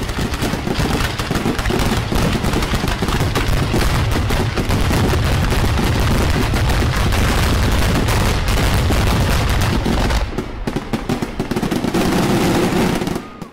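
Fireworks going off in a dense barrage: rapid reports and crackle running together, cutting off abruptly at the end.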